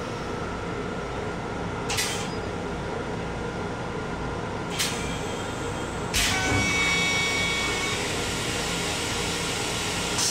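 Steady running noise of a Long Island Rail Road M7 electric railcar, heard from inside its restroom. Three short hisses come at about two, five and six seconds in. After the third the noise grows a little louder, with faint whistling tones for a couple of seconds.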